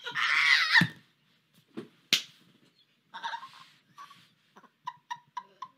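Several people laughing hysterically. A high shriek of laughter breaks off into breathless, near-silent laughing with gasps, and one sharp smack comes about two seconds in. It ends in short wheezing bursts of laughter.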